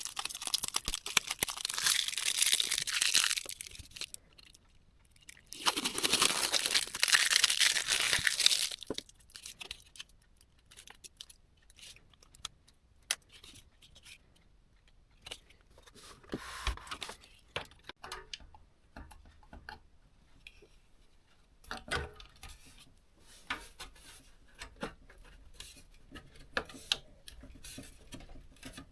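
Packaging being torn and crinkled in two long noisy bursts, then scattered light clicks and taps of small parts being handled.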